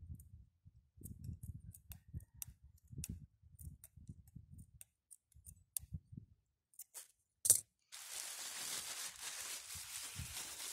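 Low irregular rumbles with faint scattered clicks, then one sharp click about seven and a half seconds in. After it comes a steady crinkly rustle: the black plastic bag wrapped around an air-layered branch, handled as it is tied shut with string.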